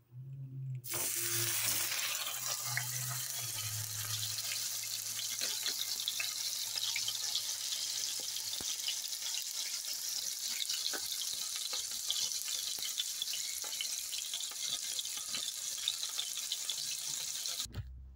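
A seasoned steak sizzling in hot oil in a small frying pan, with a steady hiss and constant small crackling pops. The sizzle starts suddenly about a second in as the steak goes into the pan and cuts off suddenly near the end.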